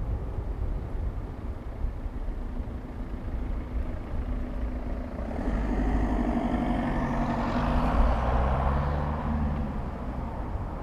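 A motor vehicle passes close by: engine and tyre noise swell from about halfway through, peak about eight seconds in, then fade. Underneath is a steady low rumble.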